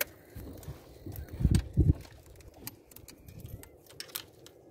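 Handling noise of hands rigging a fish onto a fishing line: scattered small clicks and rustles of line and tackle. Two loud, low thumps come about a second and a half in.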